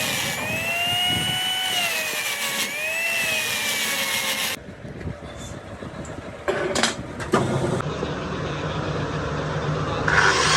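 A power tool running with a high whine that dips and recovers in pitch several times, cutting off suddenly about four and a half seconds in. A few knocks follow, then a lower steady machine hum, and something loud and noisy starts near the end.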